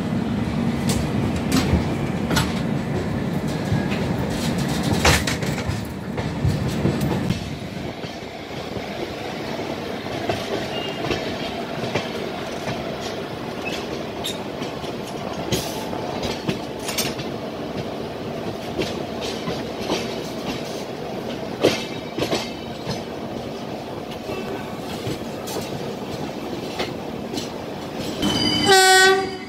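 Passenger train running slowly out of a station, heard from the coach doorway: a steady rumble of wheels on rail with irregular clicks over rail joints and points. The rumble is louder for the first several seconds. A short, loud, high-pitched sound comes near the end.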